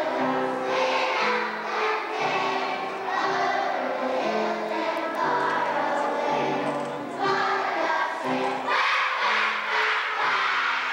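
A group of voices singing a song together, in held notes that change from one to the next.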